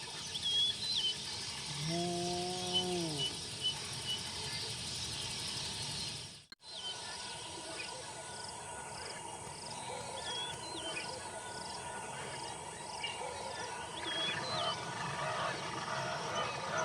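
A spotted hyena gives one low, drawn-out call about two seconds in. The call holds its pitch and then falls away. Small birds chirp faintly throughout, and the sound cuts out for an instant near the middle.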